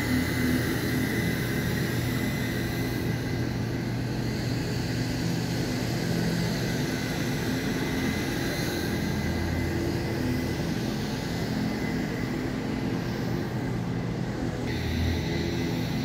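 Commercial vacuum cleaner running steadily on carpet: an even motor hum with a thin high whine over it.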